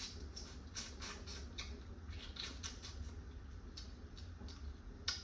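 Close-up eating sounds of a person chewing seasoned blue crab meat: a run of short, wet, irregular smacking clicks, a few a second, over a steady low hum.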